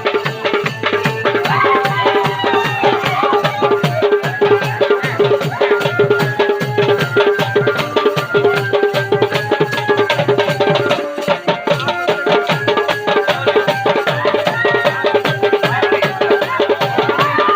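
Indian wedding band (baaja) music: fast, driving drumming with a melody played over a steady held drone tone.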